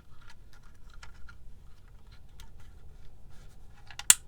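Handle of a hand-squeezed label maker being worked: a string of small plastic clicks, with one sharp, louder click near the end, as the label tape is fed in.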